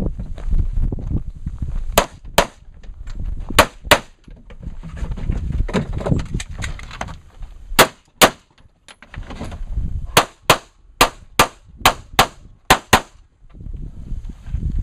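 Handgun fired in quick pairs of sharp cracks, then a fast, even string of about ten shots near the end, as a competition shooter engages targets through a low port. A low rumble sits between the pairs of shots.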